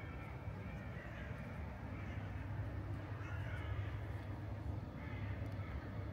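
Birds calling again and again over a steady low rumble of city traffic.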